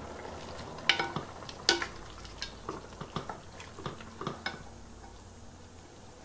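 A spoon stirring in a cooking pot, knocking and clinking against the pot about a dozen times at an uneven pace. The knocks stop about four and a half seconds in.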